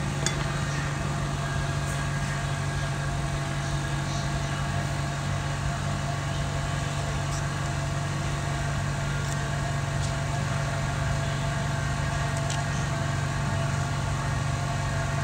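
Steady low hum of running electric repair equipment, unchanging throughout, with a few faint light clicks.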